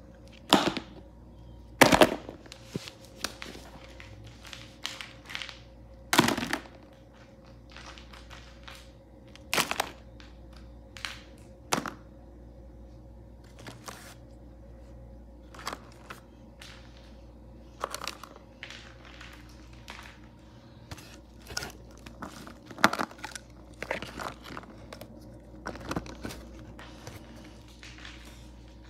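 Hard plastic toy animals clacking and knocking against one another and the cardboard box as they are shuffled by hand: irregular sharp knocks with pauses between, the loudest about two and six seconds in.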